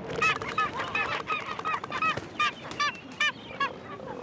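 A gull calling in a rapid series of about a dozen short, sharp, hooked calls, roughly three a second, over a low steady tone that stops after a second and a half.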